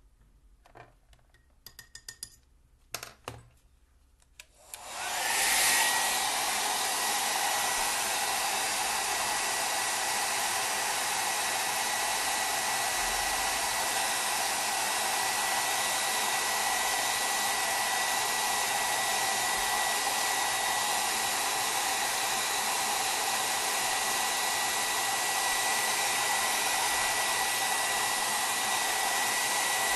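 A few light clicks and knocks, then a hair dryer switches on about five seconds in and runs steadily. A thin high whine sits over its rush of air, as it blows over watercolour paper to dry the paint.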